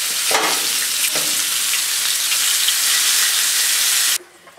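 Salmon fillets frying in oil in a nonstick pan: a loud, steady sizzle from fish seared all the way through, with two brief knocks in the first second or so. The sizzle cuts off suddenly about four seconds in.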